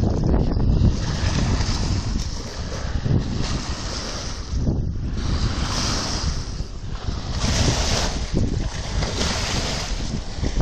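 Strong wind buffeting the microphone with a heavy low rumble, over large waves breaking on the shore; the hiss swells and falls every second or two.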